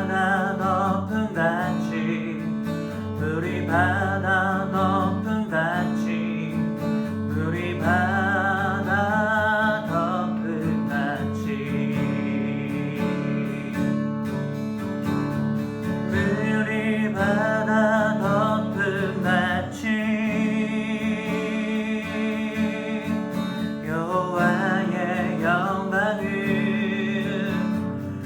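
Worship song on strummed acoustic guitar, with a singing voice carrying the melody with vibrato.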